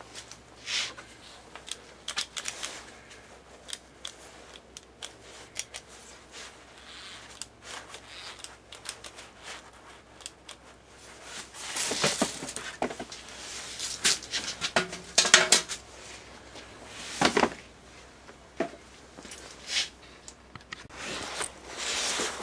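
Irregular clicks, clinks and rustling of tools and objects being handled at a cluttered workbench, sparse at first and then a louder run of knocks and rattles a little past halfway.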